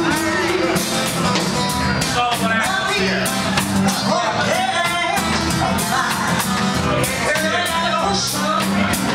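Live band playing a reggae song: a woman singing into a microphone over acoustic and electric guitars and a drum kit.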